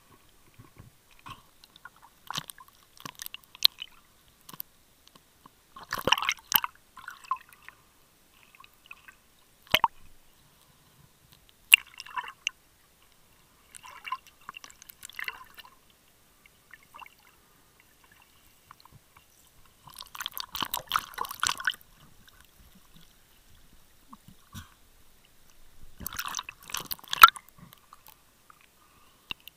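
Muffled underwater sound picked up by a waterproof camera held underwater: short bursts of crackling, sloshing water and a few sharp clicks, coming every few seconds with near silence between them. The longest bursts come about two-thirds of the way in and near the end.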